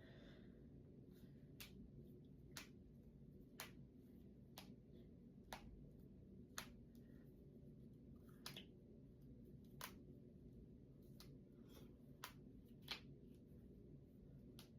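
Finger joints and knuckles being cracked one after another: about a dozen faint, short pops, roughly one a second, over a steady low hum.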